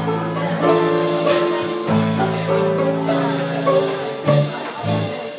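Live band playing: a violin carries a bowed melody over electric bass and a drum kit.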